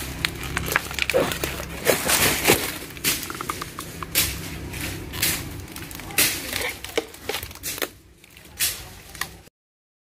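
Footsteps crunching through dry leaf litter and brush, with irregular sharp cracks and knocks. The sound cuts off abruptly near the end.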